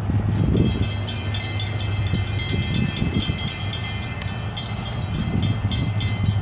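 Florida East Coast Railway freight train passing close by. Its diesel locomotives give a steady low rumble, and sharp clicks of the wheels over the rails repeat from about half a second in.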